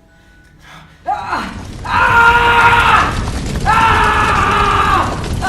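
A man screaming in long, loud cries of about a second each, one after another, starting suddenly about a second in over a rough, noisy background.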